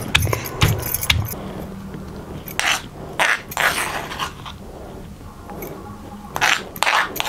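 Stone pestle pounding raw mango chutney in a stone mortar, three thuds in the first second, then a metal spoon scraping the coarse paste out of the stone mortar in three short scrapes.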